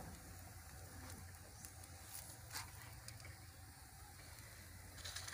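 Faint sound of a wood fire burning in a clay chulha, a low steady hiss with a soft crackle about two and a half seconds in and another near the end.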